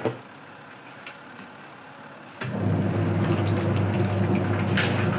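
Washing machine running with a liquid soap mixture inside: a short knock, a quieter pause, then about two and a half seconds in the motor starts again with a steady hum and sloshing liquid.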